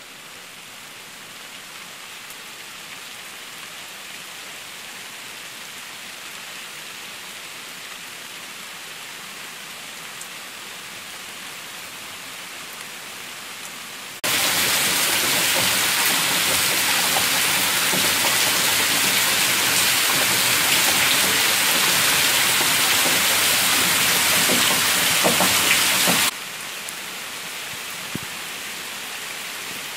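Steady rain falling, an even hiss of drops. It turns abruptly louder about halfway through and drops back suddenly near the end.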